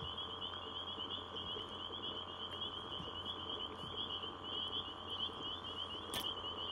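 A chorus of frogs calling over the lake, a steady high-pitched pulsing trill that never breaks, with one short sharp click about six seconds in.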